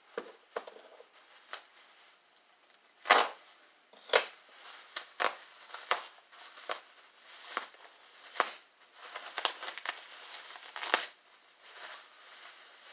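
Clear plastic bubble wrap and bag packaging crinkling and crackling as it is unwrapped by hand. The crackles come in irregular bursts, the sharpest about three and four seconds in.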